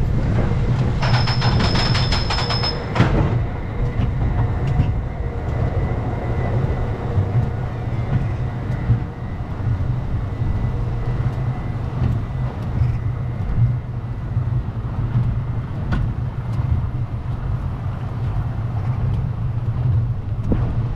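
Wooden roller coaster train climbing its chain lift hill, a steady low drone from the lift. About a second in, a fast clatter of clicks with a high whine lasts roughly two seconds, and a few single clicks come later in the climb.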